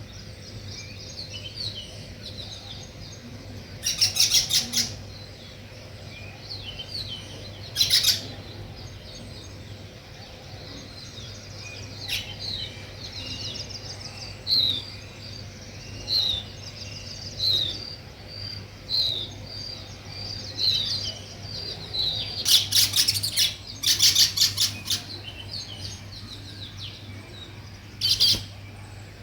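House sparrows chirping: several loud bursts of rapid chirps, with a run of short, falling notes repeated about once a second in between.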